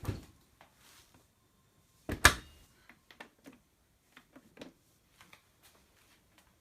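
Hotpoint SDL910 dishwasher being handled: one loud clunk about two seconds in, with scattered light clicks and knocks before and after it.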